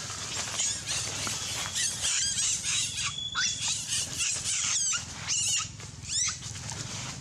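Young macaque screaming in distress: a rapid run of high-pitched, wavering squeals as it is grabbed and chased. The cries are loudest about five and a half seconds in and die away near the end.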